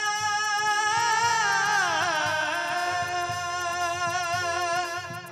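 A male singer holds a long wordless sung note into a stage microphone. About two seconds in he slides down to a lower note and holds it, with faint percussion underneath, all heard through the stage sound system.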